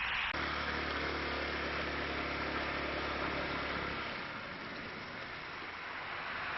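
A vehicle engine idling steadily. It starts abruptly about a third of a second in and fades out around four seconds, over a steady hiss of outdoor noise.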